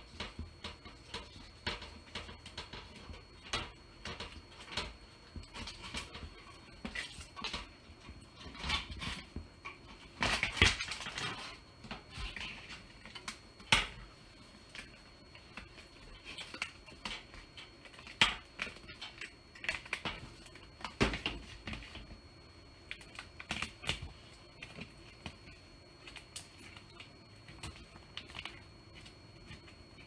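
Irregular light clicks and taps, with a denser clatter about ten seconds in and a single sharp knock near fourteen seconds.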